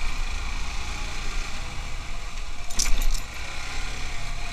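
Yamaha motorcycle engine running steadily while riding over an unpaved gravel road, with a short cluster of rattling clicks about three seconds in.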